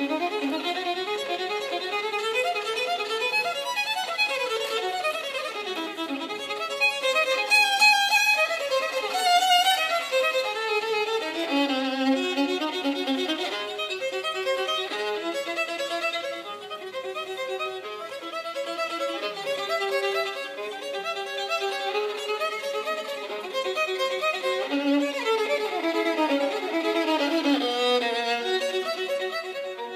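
Solo violin played unaccompanied: a melody of quick runs and longer held notes, loudest in a stretch of high notes about eight to ten seconds in.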